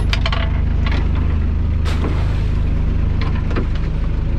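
Boat engine running steadily under way, with a few sharp knocks and rattles from lobster pots and gear being handled on deck.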